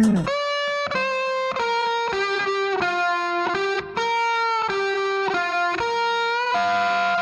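Background music: a break without drums in which a lead instrument plays a melody of held notes, changing about every half second.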